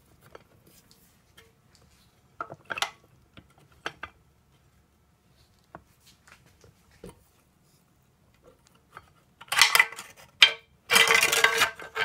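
Metal parts of a 42RE automatic transmission being handled inside its case: a few light clicks early, then loud metallic clattering and rattling about nine and a half seconds in and again through the last second.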